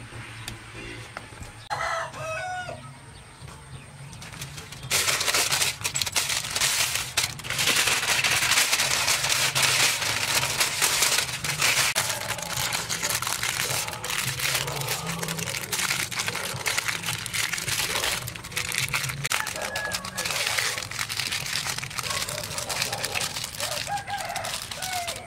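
Aluminium foil crinkling and crumpling loudly as hands fold and press it around a parcel, starting about five seconds in. Before that a rooster crows once.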